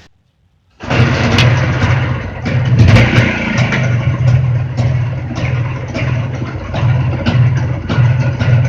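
Jawa motorcycle two-stroke engine running loudly, cutting in abruptly about a second in, its level pulsing with sharp ticks across the beat.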